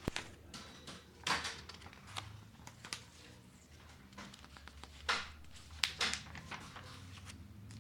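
Faint scattered rustles and clicks, like paper or objects being handled, over a low steady hum in a small room.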